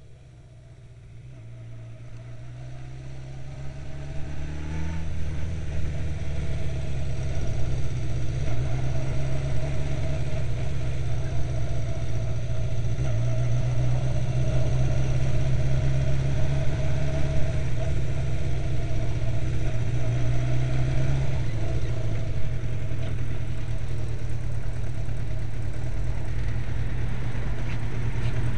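Kawasaki Zephyr 550's air-cooled inline-four engine running at low speed, a steady low drone that grows louder over the first few seconds and then holds, with small throttle changes along the way.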